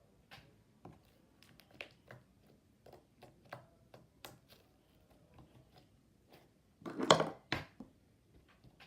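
Light clicks and taps of small objects handled by hand while blush powder is added to slime, with a louder short clattering rustle about seven seconds in.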